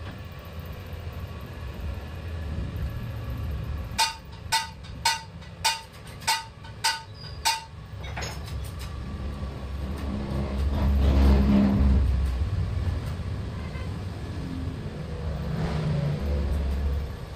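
Seven sharp metallic clicks with a short ring, evenly spaced about half a second apart, from hand threading tools being worked on a crankshaft held in a lathe. Under them runs a steady low rumble of passing road traffic, which swells to its loudest about eleven seconds in and again near the end.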